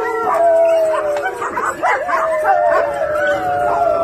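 A pack of German Shepherds howling together: several long, slowly falling howls overlap, with short yips mixed in.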